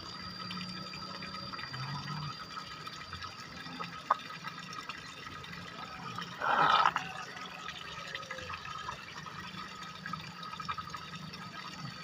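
Shallow muddy water trickling and dripping steadily. There is a single tick about four seconds in and a short, louder splash about six and a half seconds in.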